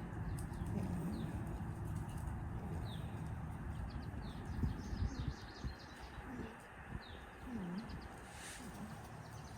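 A goat making a few short, low, swooping vocal noises in the second half, with small birds chirping repeatedly in the background and a low rumble during the first half.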